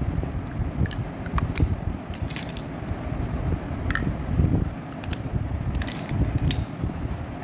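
Plastic lipstick tubes being handled: scattered light clicks and taps of the cases over a steady low rumble.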